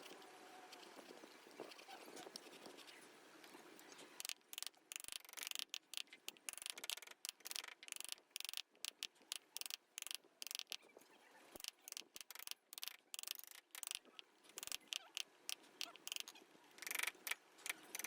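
Hand carving chisel cutting into wood in quick, irregular scraping strokes, several a second, starting about four seconds in.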